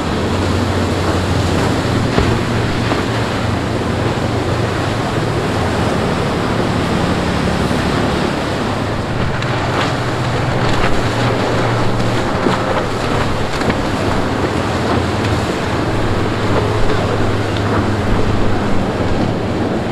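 Powerboat engines running at speed, a steady low drone, over the hiss of water and wake, with wind buffeting the microphone. The drone fades for a few seconds in the middle and then returns.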